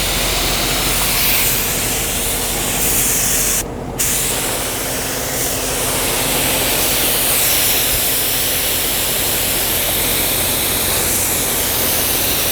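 Air spray gun spraying mixed 2K primer with a steady hiss, letting off briefly about four seconds in. A low steady hum runs underneath.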